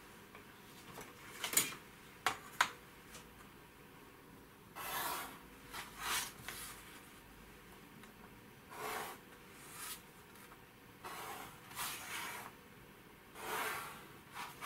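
Mechanical pencil drawing lines on paper along a ruler: a series of short, faint scratching strokes, with a few sharp taps about two seconds in.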